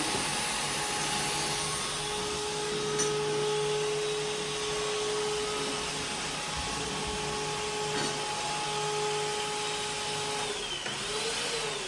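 Electric vacuum cleaner running with a steady whine. Near the end it is switched off and the motor winds down, its pitch sliding down as it fades.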